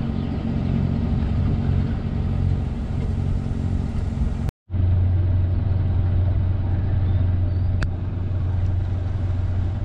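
Sailboat's engine running steadily under way, a constant low drone, with a brief gap about halfway through.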